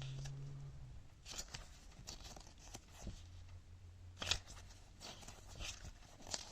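Faint rustling of a paper instruction manual being handled and its pages turned, with a few soft crinkles and taps scattered through.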